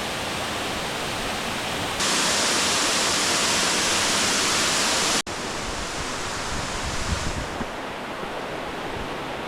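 Eden Falls, a waterfall, pouring with a steady rushing noise. About two seconds in it turns louder and brighter, then cuts back sharply to the duller rush a little after five seconds.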